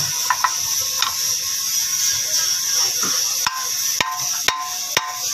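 Hammer blows on the steel knuckle and new control-arm ball joint as the joint is driven into the knuckle clamp. A few light taps come first, then from about three and a half seconds in, regular strikes about two a second, each with a short metallic ring.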